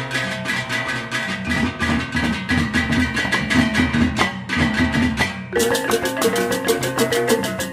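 Fast rhythmic percussion music with ringing metallic tones. It switches abruptly to a different pattern about five and a half seconds in.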